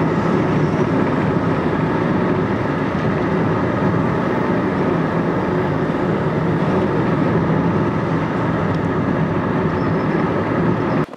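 Steady road noise of a vehicle driving at speed, heard from inside: tyres on tarmac with engine and wind. It stops abruptly near the end.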